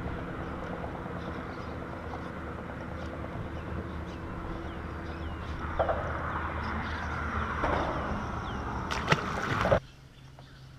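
Wind and water noise around a kayak while a landed fish is handled, over a steady low hum, with short falling bird chirps in the middle. A few sharp knocks come near the end, then the sound drops off suddenly to quieter water noise.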